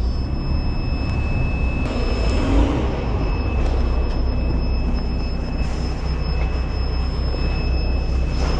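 Semi truck's diesel engine running, a steady low rumble heard inside the cab, with a faint steady high whine over it.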